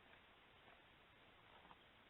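Near silence: a faint steady hiss with two faint brief ticks, one under a second in and one near the end.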